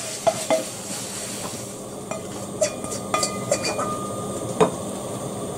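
Scattered clinks and knocks of cookware as stir-fried beef is scraped out of a wok into a bowl. A few of the knocks ring briefly, and the sharpest comes near the end.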